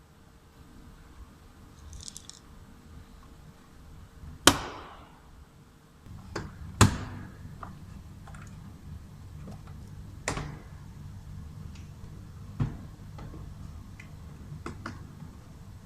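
Sharp clicks and knocks of tools and plastic door trim being handled on a car door, the two loudest about four and a half and seven seconds in. A low steady hum comes in about six seconds in.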